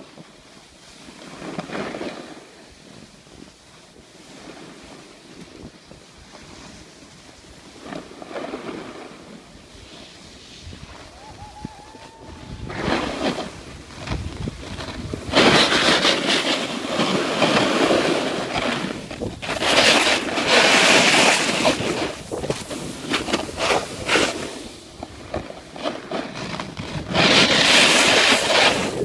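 Wind buffeting a phone's microphone and a snowboard sliding and scraping over snow during a run downhill. Fairly quiet at first, it turns loud and gusty from about halfway through.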